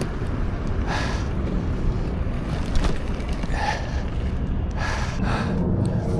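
A skater breathing hard, with a few short, sharp breaths at irregular intervals over a steady low rumble.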